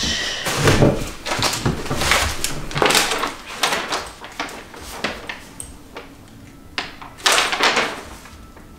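Large paper instruction sheets rustling and crinkling as they are handled and turned, in a string of short noisy bursts, busiest in the first three seconds and again near the end.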